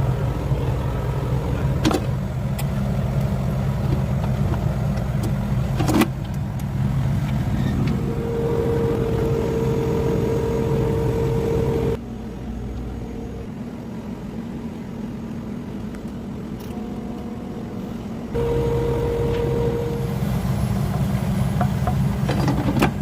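Microwave oven running with a loud, steady electrical hum. The hum drops away for about six seconds midway through and then returns, and there are two sharp clicks in the first part.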